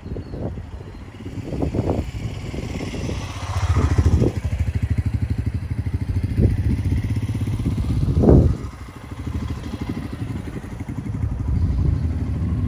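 Royal Enfield Himalayan's single-cylinder engine running as the motorcycle rides past. The engine note grows loud about four seconds in and swells again near eight seconds, then drops away and builds once more near the end as the bike comes close again.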